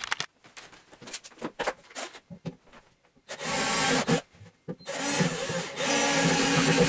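Cordless drill with a large bit boring into an OSB panel, making a starting hole for a jigsaw blade. Scattered knocks of handling come first; then the drill runs briefly about three seconds in and again steadily from about five seconds on.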